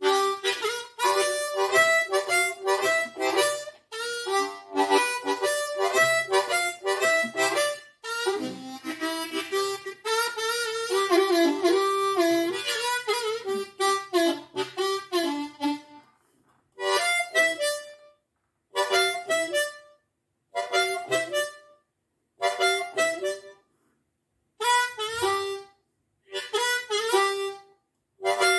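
Diatonic harmonica in C playing a 12-bar blues chorus, improvised away from the basic riff. Dense runs of notes for about the first sixteen seconds, then short phrases of about a second with pauses between them.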